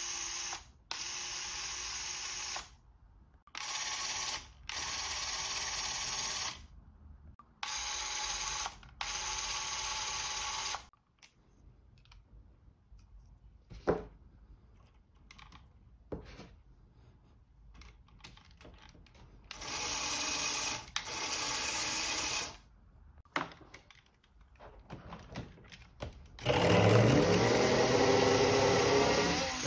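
LEGO Mindstorms EV3 motor driving a gear train that spins up two tops, whirring in repeated runs of one to two seconds with short pauses, with clicks of plastic parts being handled in the quieter stretch. Near the end a longer, louder run rises in pitch as the motor spins the tops up inside the stadium.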